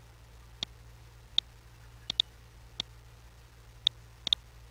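Computer mouse button clicking: about eight short, sharp clicks at uneven intervals, some in quick pairs like double-clicks, over a faint steady low hum.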